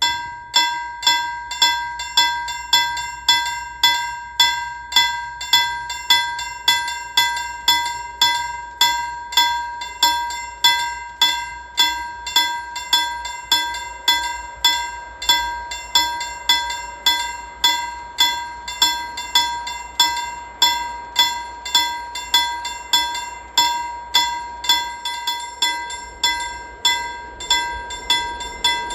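Level-crossing warning bell starting suddenly and ringing with evenly spaced strikes, just under two a second, each ringing out and fading before the next. It is the warning that a train is approaching and the half barriers are coming down.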